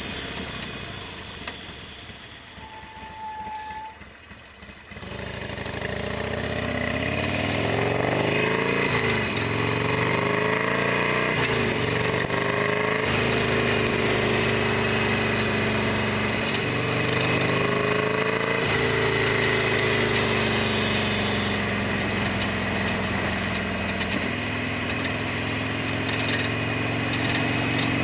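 Harley-Davidson Sportster XL1200R's air-cooled V-twin engine, quiet at first, then pulling away and accelerating through several gears, its pitch rising and dropping back at each shift.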